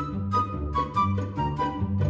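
Background music with a steady beat, a bouncing bass line and a light melody.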